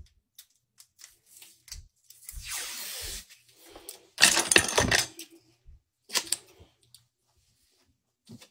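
Rustling and clattering handling noises close to the microphone, with scattered clicks; a longer rustle about two seconds in and a louder one about four seconds in.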